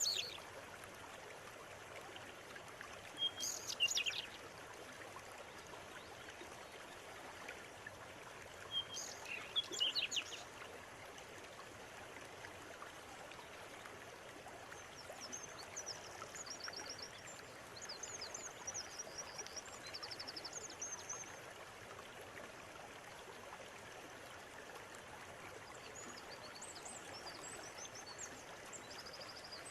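River water running steadily, with birds singing: two louder sweeping calls about four and ten seconds in, then bouts of rapid, high trilling song lasting several seconds.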